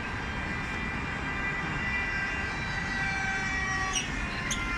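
High whine of a foam RC plane's motor and propeller in flight, several tones drifting slowly lower, over a low steady rumble of street traffic. Two short high chirps near the end.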